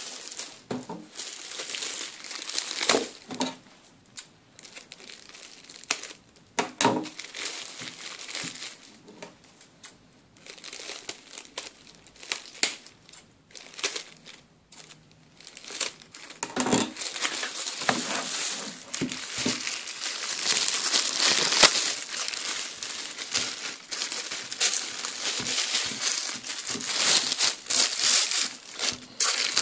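Clear plastic wrapping bag crinkling and crackling as it is handled and cut open with scissors. The crinkling is sparse at first and becomes busier and louder from about halfway through.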